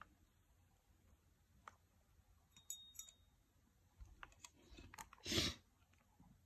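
Faint scattered clicks and light knocks from a server blower fan and its cable-tied controller board being handled on a table, the fan not running. One brief louder rustle comes about five seconds in.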